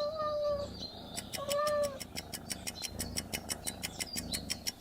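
A domestic cat meowing twice, two short calls about a second and a half apart, followed by a fast, even ticking.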